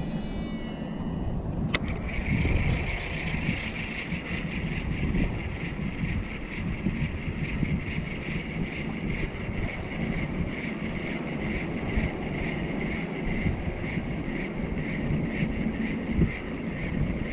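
Baitcasting reel cranking in a lipless crankbait: a sharp click about two seconds in as the reel is engaged, then a steady whir from the reel's gears that pulses faintly with each turn of the handle. Wind rumbles on the microphone underneath.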